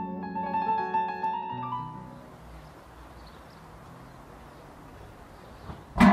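Background piano music that fades out after about two seconds, leaving a faint hiss. Right at the end comes one sudden loud hit that rings on in several tones.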